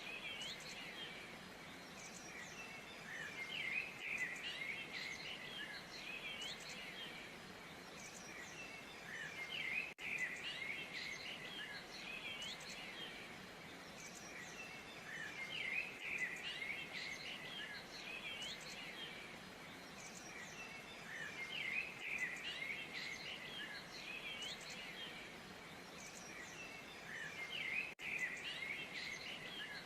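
Many small birds chirping and twittering over a steady background hiss, the chirping swelling in bursts about every six seconds.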